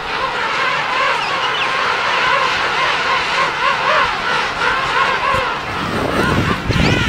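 A large king penguin colony calling: many overlapping warbling calls layered into a dense, steady din. A low rumble swells in near the end.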